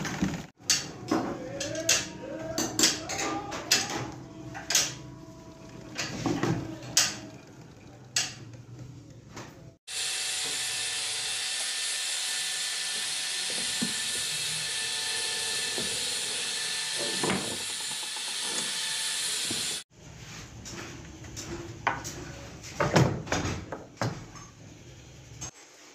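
Irregular metallic clicks and taps of sewing machine parts being handled and fitted. For about ten seconds in the middle these give way to a steady hiss that starts and stops abruptly.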